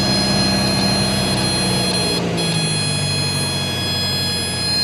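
Piper Archer II's four-cylinder Lycoming engine heard from inside the cabin, running steadily, its note falling about two to three seconds in as power comes back, as in setting up a stall.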